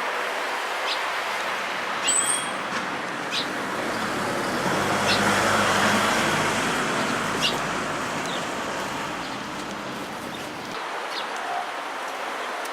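Road traffic: a vehicle passes, its noise swelling to the loudest point about halfway through and then fading. Sparrows give short, scattered high chirps over it.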